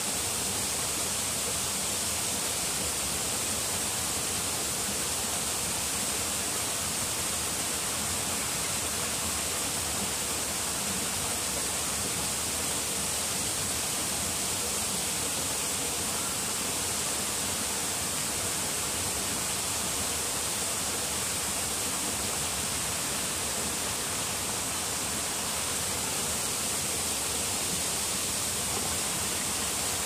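Steady hiss of running water.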